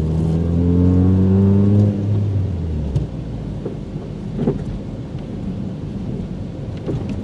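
1995 Mazda MX-3's engine heard from inside the cabin, accelerating hard with its pitch rising for about two seconds, then letting off; after that, a steady low road and tyre rumble with a few light knocks.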